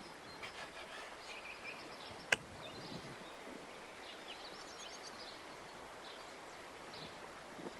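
Quiet outdoor ambience with faint, scattered bird chirps, and one sharp click a little over two seconds in.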